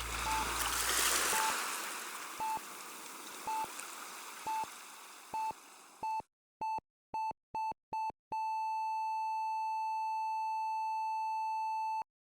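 Electronic beeps at one pitch, about once a second, coming faster and faster and then merging into one long steady tone that cuts off suddenly. A rushing hiss under the first beeps fades away.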